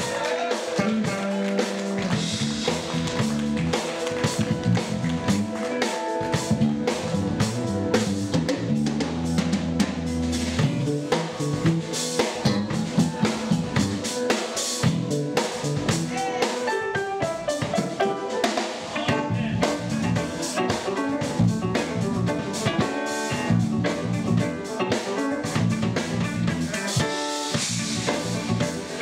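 Live band playing: a drum kit with kick, snare and cymbals driving a steady beat under electric bass guitars and electric guitar.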